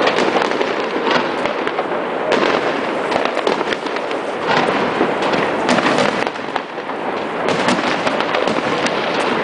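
Fireworks display: a dense, continuous barrage of bursts and crackling, with many sharp reports overlapping. It eases briefly about two-thirds of the way through.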